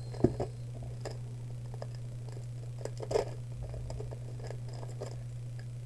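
Trading-card booster pack being opened and handled by hand: the wrapper crinkles and the cards slide in short, scattered rustles, the sharpest just after the start and about three seconds in. A steady low hum runs underneath.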